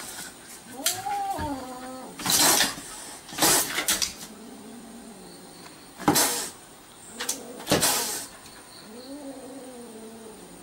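Kitten hissing and spitting in about four short sharp bursts, with two drawn-out rising-and-falling yowls, one near the start and one near the end: a defensive threat display.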